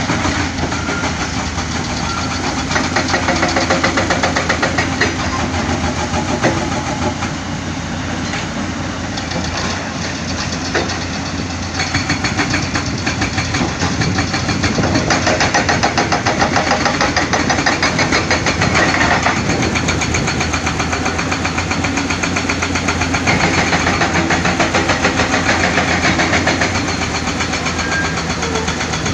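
Heavy diesel engines of an excavator and dump trucks running at a digging site, growing louder for stretches as the machines work.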